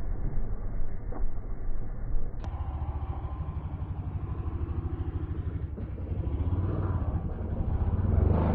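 Dirt bike engine chugging at low revs with a rapid, even pulse, then revved harder near the end as the bike climbs. A muffled recording of another dirt bike's engine fills the first two seconds or so.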